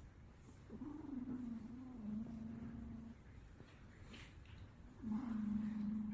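Sleeping cat snoring: two long snores, each held on one low, steady note for about two seconds, the second starting about four seconds after the first.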